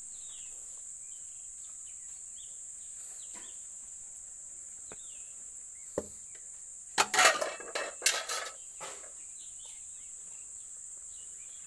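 Metal cookware clattering: a steel lid and ladle set down on a metal kadai, a quick run of sharp clanks about seven seconds in lasting under two seconds. A steady high-pitched insect drone runs underneath.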